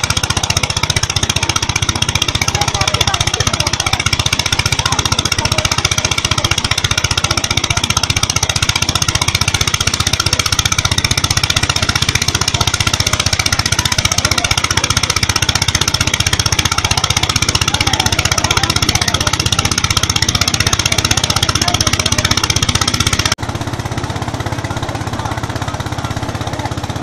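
Restored 1930s Biagioni threshing machine, driven by a Slanzi S20 air-cooled engine, running steadily while being fed sheaves: a fast, even mechanical beat under a continuous high whine. Near the end the sound turns abruptly quieter and duller.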